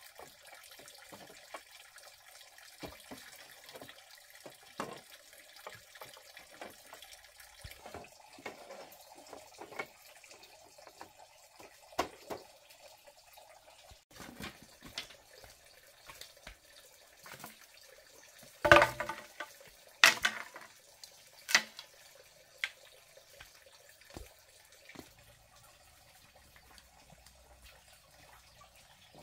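Bamboo slats and poles knocking and clattering as they are handled, with scattered light clicks throughout and a few louder sharp knocks about two-thirds of the way in.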